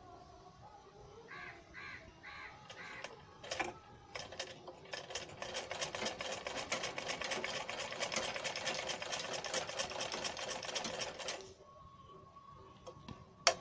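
Domestic sewing machine stitching through cloth: a few slow stitches about a second in, then a fast, even run of stitching from about four seconds in that stops shortly before the end. A single sharp click comes just before the end.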